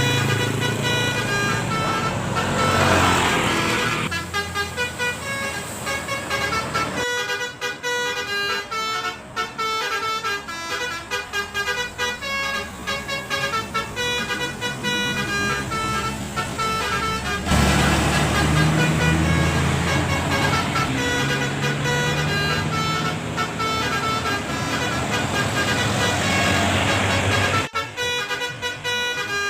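Bus 'telolet basuri' multi-tone musical horn playing a tune in quick stepped notes, over the bus's diesel engine running, which swells up in the first few seconds and again for about ten seconds from a little past halfway.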